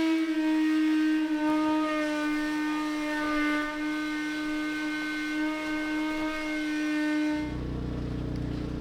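Vacuum motor running with a steady, high whistling whine whose pitch steps a little as the hose sucks up bilge debris. About seven seconds in it cuts off and a deeper engine hum takes over.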